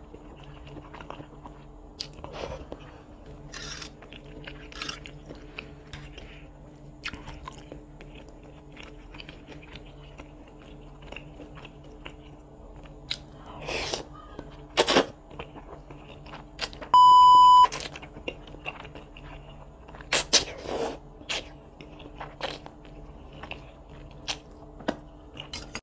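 Close-up eating sounds of a person slurping and chewing chicken noodles: wet mouth clicks and smacks, with a few louder slurps. A single loud electronic beep, lasting about half a second, cuts in about two-thirds of the way through.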